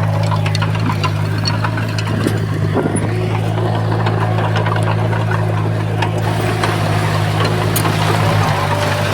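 Heavy diesel earthmoving machine running steadily, with a scatter of short metallic clicks and rattles over the engine.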